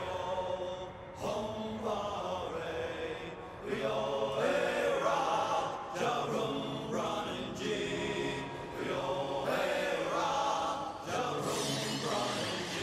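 Opening-title theme music for a TV series: a chanted vocal line over a musical backing.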